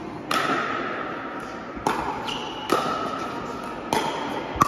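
Pickleball rally: paddles striking the plastic ball, about five sharp pops a second or so apart, each with a brief ringing tone and echo in the large hall.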